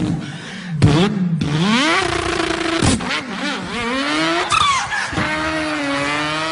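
A man imitating a racing car engine with his voice. The engine note climbs in pitch, drops sharply and climbs again several times, like a car revving up and changing gear.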